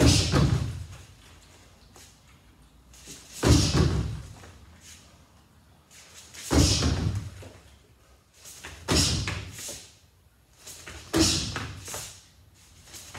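Kicks landing on a freestanding striking dummy and punch bag: five heavy thuds, about one every two to two and a half seconds, each echoing briefly in the hall.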